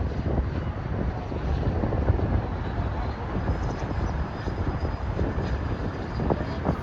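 Electric ducted fan of an RC jet running in flight, heard as a faint steady high whine that comes in about three seconds in, under heavy wind buffeting on the microphone.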